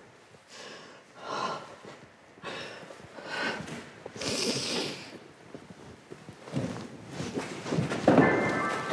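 Two people breathing heavily and unevenly as they kiss: a series of noisy breaths roughly a second apart. Music comes in near the end.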